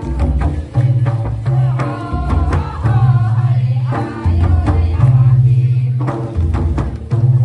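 Tribal folk dance music: two-headed mandar barrel drums and frame drums beaten in a repeating rhythm, with voices singing a melody over the deep drum booms.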